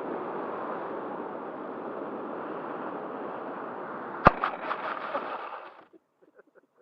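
Air rushing past the onboard camera of a Bixler 3 foam model plane as it glides in, then a sharp thump about four seconds in as it hits the ground, followed by a few smaller bumps as it skids to a stop, after which it goes quiet.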